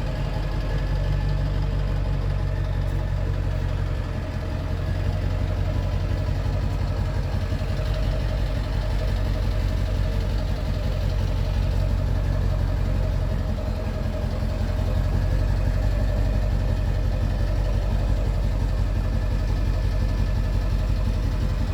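A vehicle engine running steadily at an even speed with a deep, constant drone, slightly louder from about fifteen seconds in.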